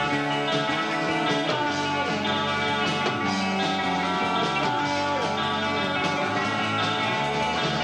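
Live rock band playing, with guitar to the fore and notes bending up and down over a steady backing.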